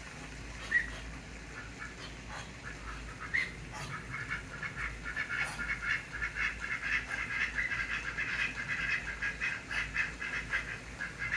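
Pekin ducks quacking: one sharp quack about a second in, another after about three seconds, then a rapid, continuous run of short quacks.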